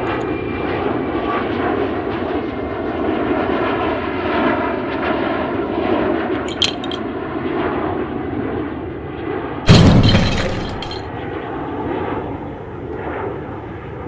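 Steady drone of an airplane engine, with a brief click about six and a half seconds in and one loud, deep thud about ten seconds in.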